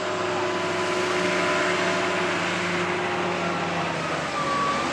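An engine running steadily: a loud, even hiss with several steady hum tones and no change in speed.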